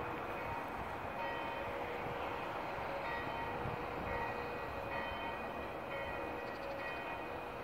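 Church bells pealing, several bells struck again and again so their tones overlap, over a steady background rumble.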